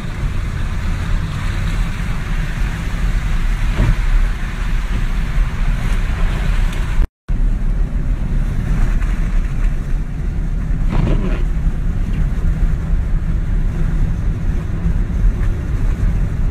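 Steady low rumble of a vehicle's engine and tyres on a snow-covered road, heard from inside the cab while driving. The sound drops out completely for a moment about seven seconds in.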